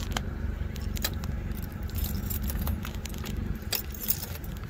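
Handling noise from a phone carried while walking: irregular light clicks and jingling, over a low steady rumble.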